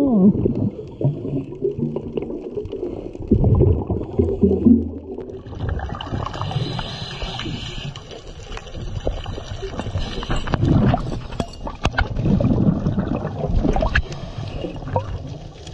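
Underwater gurgling and bubbling of a scuba diver's exhaled air. About five seconds in, a hiss joins it, along with scattered sharp clicks.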